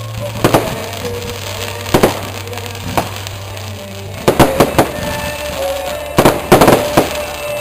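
Consumer fireworks going off: single sharp pops every second or so, then quick clusters of bangs and crackles about four seconds in and again near the end.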